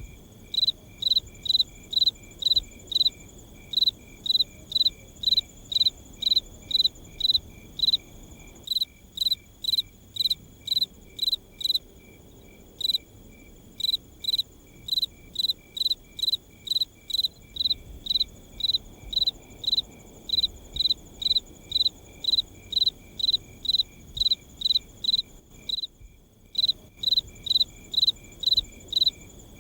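A cricket chirping steadily at night, about two short chirps a second, pausing briefly twice, over a faint low background hum.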